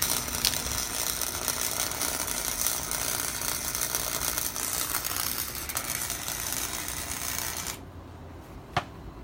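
Welder laying a bead on a seat bracket: a dense, loud crackle that stops abruptly, followed about a second later by a single sharp click.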